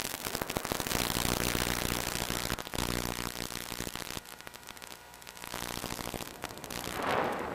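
Electric motor and pusher propeller of a Multiplex Easystar foam plane running under power, heard through the plane's onboard video-link audio with heavy hiss and crackling radio static. The steady motor tone fades after about four seconds and a rush of noise swells near the end.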